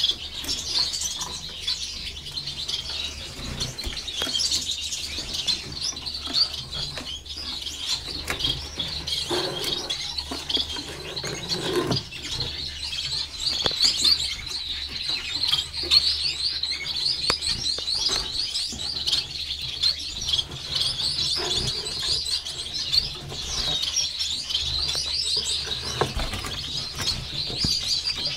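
Finches, Gouldian finches among them, chirping in a steady, dense chatter of short high notes, with a brief flutter of wings now and then.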